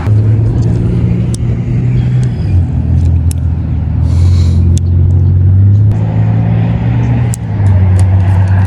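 Loud low rumble with a steady hum that drops a little in pitch about two and a half seconds in, with a few faint sharp ticks over it.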